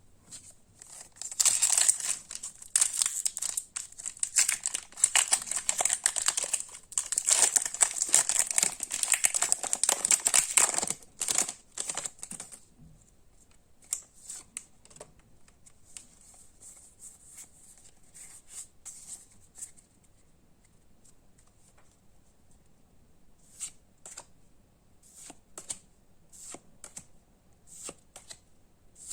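A foil Pokémon card booster pack torn open, its wrapper crinkling loudly for about ten seconds. Fainter scattered clicks and ticks of cards being handled follow near the end.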